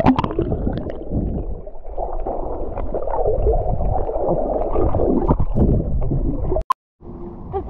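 Muffled underwater rushing and bubbling heard through a camera submerged in the sea as swimmers duck under. Near the end a sharp click and a moment of silence break it off.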